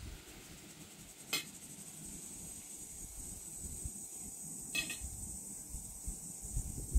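Two light clinks of cutlery on a plate, one about a second in and one just before five seconds, over a faint steady high hiss.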